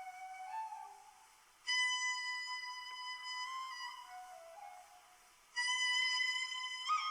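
Slow instrumental background music: a melody of long held notes. A loud new phrase comes in about a second and a half in and again near the end.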